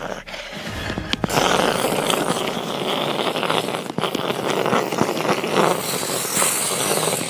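Explosion sound effect for a meteorite impact: a sharp crack about a second in, then a long crackling, hissing blast.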